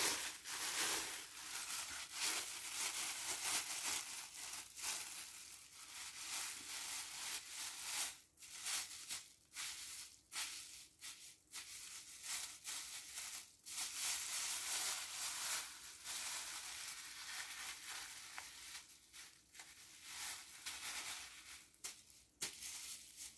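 Plastic bag crinkling and rustling as it is pulled on and adjusted over the head, in stretches broken by short pauses.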